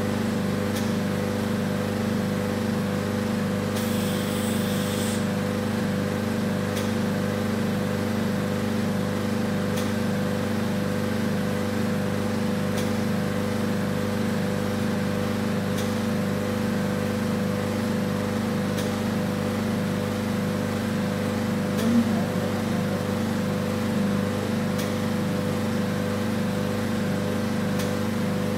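Steady motor hum of a vacuum RF body-contouring machine's vacuum pump, pulsing quickly and evenly, with a faint click about every three seconds while the handle works on the face.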